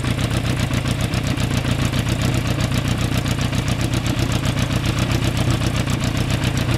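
1991 Yamaha FZR1000's inline-four engine idling steadily, with an even, rapid pulse.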